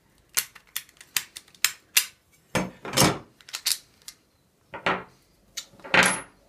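Stainless steel hub brackets and small bolts clinking and knocking against each other and the wooden table as they are handled. A quick run of light clicks comes first, then a few louder clanks, the loudest near the end.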